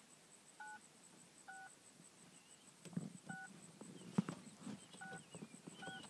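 Birds calling: a short, flat note repeated about once a second, and wavering higher notes, over a steady, fast-pulsing insect chirp. From about three seconds in come rustles and soft knocks, the loudest sounds here.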